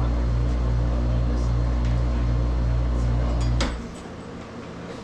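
Electric motor humming steadily with a slow pulsing throb, then switching off abruptly with a click a little under four seconds in.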